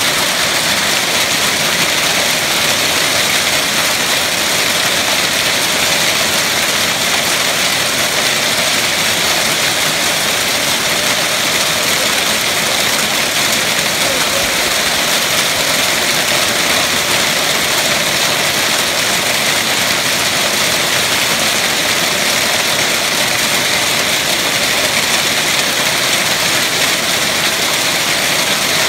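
Heavy hail falling steadily on paved ground: a dense, even rush of countless small hits that keeps up without a break.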